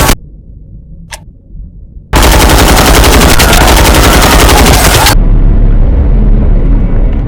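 Rapid automatic machine-gun fire. A burst cuts off at the start, then a low rumble with a single sharp crack about a second in. A sustained burst of about three seconds follows, then a quieter rumbling tail.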